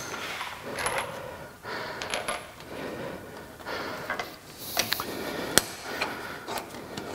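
Light metallic clinks and clicks of a hex wrench and bolt being handled on a lathe saddle, as a bolt is started into the apron's threads. The sharp clinks come irregularly, the loudest a little past halfway.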